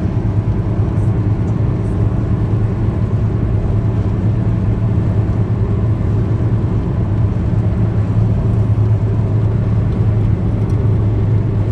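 Steady low drone of a road vehicle in motion: engine and road noise, unbroken and even in level.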